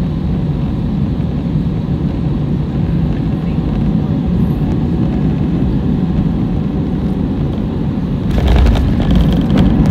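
Cabin noise of an Airbus A320 on short final: a steady roar of engines and rushing air. About eight seconds in it suddenly gets louder with a jolt and rattling as the main gear touches down hard on the runway.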